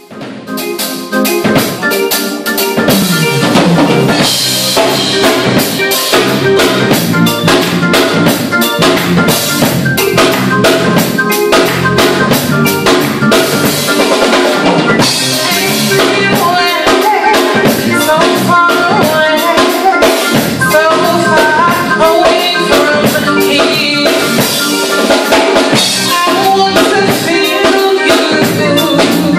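Instrumental music with a drum kit keeping a steady beat under layered pitched instruments, starting about a second in and running at a constant level.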